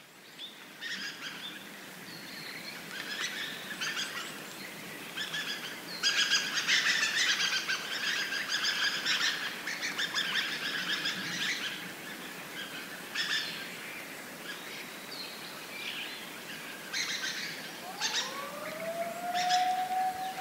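A flock of dusky thrushes calling, with many short, sharp calls overlapping, thickest in the middle stretch. Near the end a separate tone rises and then holds steady.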